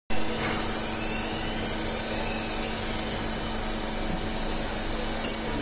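Drilling machine running with a burnishing tool feeding into a 125 mm bore in a cast housing: a steady hum with a constant tone over a hiss, and a few faint ticks.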